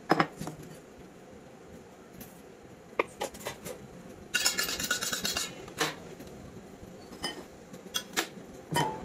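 Stainless steel bowls and utensils clinking and knocking as they are set down and handled on a wooden table, in scattered separate strikes. About four seconds in comes a second-long stretch of busier scraping and rattling.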